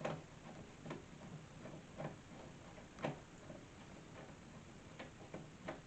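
Faint ticks, about one a second.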